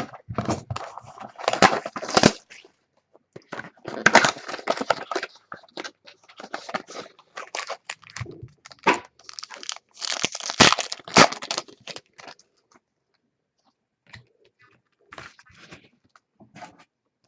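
Trading cards and their packaging being handled close to the microphone: irregular crinkling, rustling and scraping bursts, with a short pause about two-thirds of the way in.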